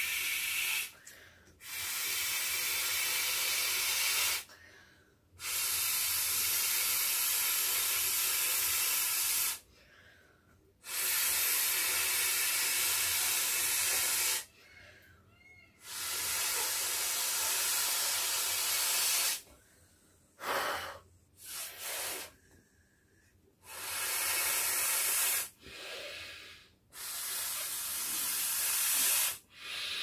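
Breaths blown by mouth into the valve of a clear vinyl beach ball. Long exhalations of three to four seconds each are separated by short pauses for breath, and they turn into shorter, quicker puffs in the second half as the ball fills.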